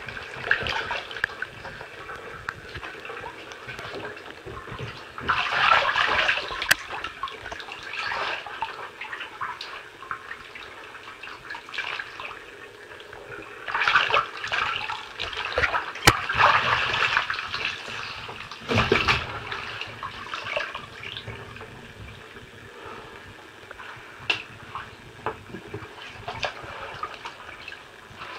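Bathwater sloshing and splashing in a filled bathtub as legs in jeans and boots move through it, in several louder surges between quieter stretches.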